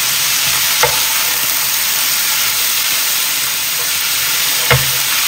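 Lot noodles, beef and bean sprouts frying in a nonstick pan, a steady sizzling hiss as they are stirred and tossed with a plastic spatula. Two brief knocks come through, about a second in and near the end.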